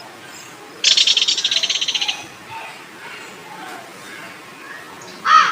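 A kingfisher's rapid, high rattling trill of even, quickly repeated notes, about a second long, starting about a second in. Near the end, a crow caws once loudly.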